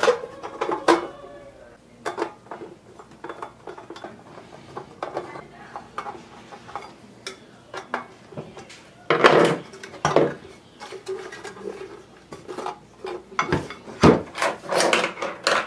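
Irregular clicks, clatter and knocks as a car amplifier's metal cover plate and finned casing are handled, screwed down and set on a workbench. The loudest clusters come about nine seconds in and again near the end.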